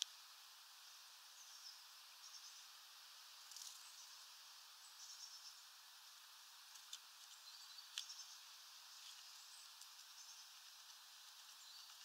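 Faint, short, high-pitched songbird chirps coming on and off over a steady hiss, with a few sharp taps scattered through.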